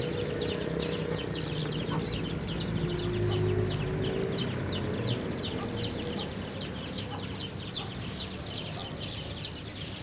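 A flock of edible-nest swiftlets twittering in rapid, high chirps as they circle outside their swiftlet house, having left it because its roosting-call speakers went silent in a power cut. A low drawn-out tone sounds underneath about three seconds in.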